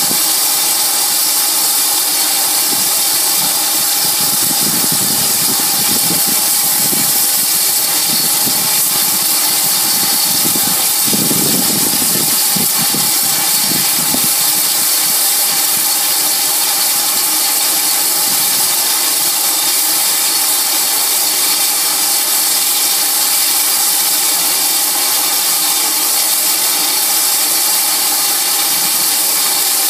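GWR 5600 class 0-6-2 tank locomotive No. 5619 standing at a water crane while its tank is filled: a steady, loud hiss, with a lower rumbling from about four to fifteen seconds in.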